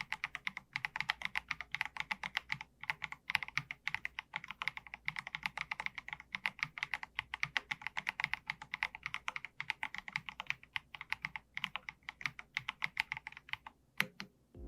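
Fast, continuous typing on an Akko MG108B full-size mechanical keyboard with Akko V3 Piano Pro switches. The keystrokes stop a little before the end, with a couple of last taps.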